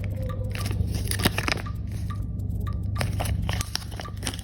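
Medicine packaging handled close to the microphone: irregular crackles and clicks over a steady low hum.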